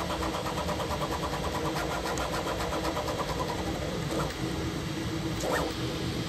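Bambu Lab 3D printer at work printing a plastic part: a steady fan-and-motor hum with the stepper motors ticking in a fast regular pattern for the first half. About four and five and a half seconds in come two short rising-and-falling motor whines as the print head makes quick moves.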